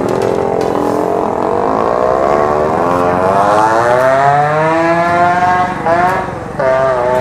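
Motorcycle engine held at high revs through a wheelie, its pitch climbing slowly for several seconds. About six seconds in it dips, cuts out for a moment as the throttle closes, then comes back steady.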